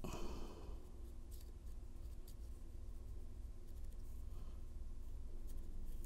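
A short breath at the start, then faint scattered metallic ticks of a HON66 Lishi 2-in-1 pick working the spring-loaded wafers of a Honda door lock, over a low steady hum.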